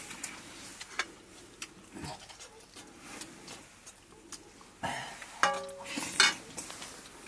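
Metal plates and a spoon clinking and scraping as people eat by hand, with scattered light clicks and a busier cluster of clinks about five seconds in.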